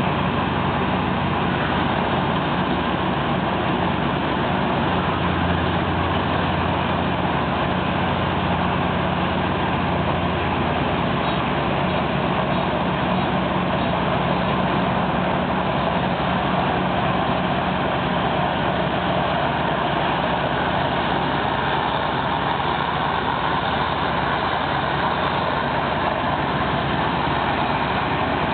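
A machine's engine running steadily under dense mechanical noise, with no break or change in loudness.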